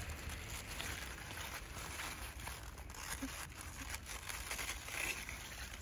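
Faint rustling and a few soft crunches of spinach leaves and stems being gathered and cut by hand at the root.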